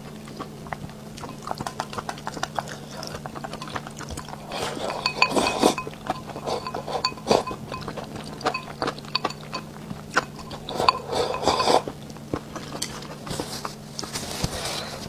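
Wooden chopsticks clicking and clinking against a small glass bowl and a ceramic bowl, with two longer bursts of slurping from the bowl, about four and eleven seconds in.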